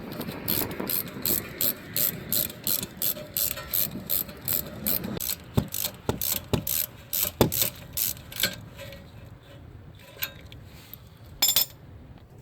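Hand socket ratchet clicking about three times a second as bolts are run down on the rear brake. The clicking thins out and stops about two-thirds of the way through, followed by a few single clicks.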